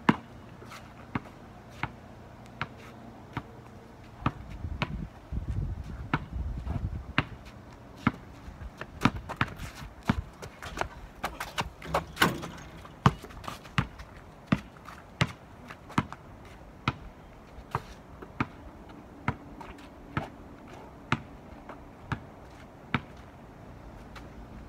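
A basketball bouncing on asphalt, dribbled in a steady beat of about one bounce a second, with a louder impact about halfway through. A low rumble lasts a few seconds near the start.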